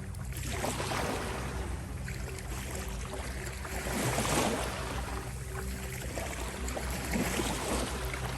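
Ocean waves washing in and drawing back in slow swells, three surges a few seconds apart, over steady low droning tones.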